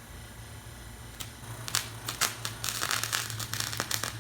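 A single click, then a quick run of rough scratching strokes starting about a second and a half in, like hand scraping or rubbing on a hard surface during bodywork.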